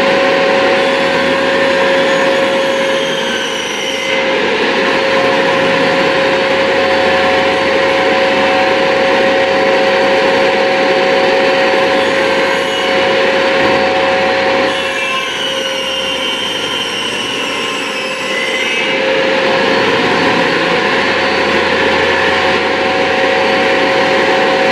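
Circular saw running at full speed with a steady high whine, taking a shallow pass of no more than 1/16 inch into a wooden tabletop blank as it is pushed back and forth along its track. The whine sags under cutting load and turns rougher about 4 seconds in and again for a few seconds past the middle.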